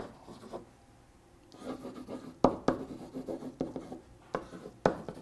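Marker pen writing on a whiteboard: irregular scratching strokes with a few sharp squeaks, starting about a second and a half in.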